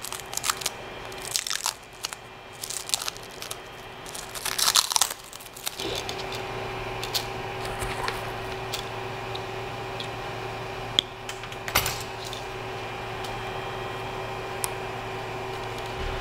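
Plastic wrapping crinkling and tearing as a filament spool is unpacked. About six seconds in, a steady hum from the 3D printer's fans starts and runs on, with two sharp clicks later.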